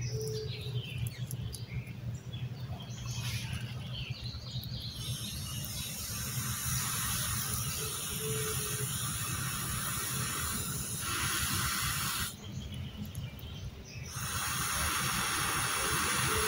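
Steady airy hiss of breath being blown onto a glowing ember in a smoking log. It cuts off for about a second and a half partway through, as if for a new breath, then goes on. A few light clicks and rustles come before it.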